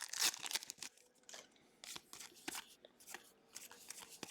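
Trading cards being handled and slid from one to the next, with faint, scattered rustles and light clicks of card stock.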